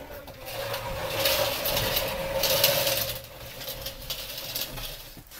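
Plastering machine running: a steady motor hum with a loud hissing rush that is strongest from about one to three seconds in.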